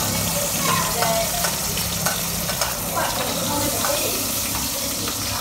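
Hot oil sizzling in a wok as lemongrass is stir-fried, with the spatula stirring through it.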